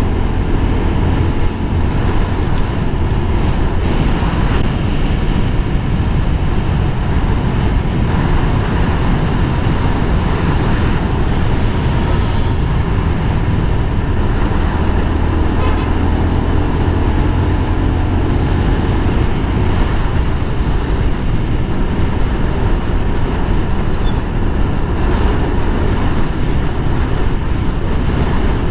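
Motorcycle riding steadily down a highway: its engine running at a constant speed under a heavy, even rush of wind on the camera microphone.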